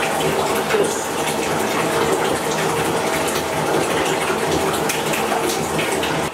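Bathtub faucet running, water pouring steadily into a partly filled tub.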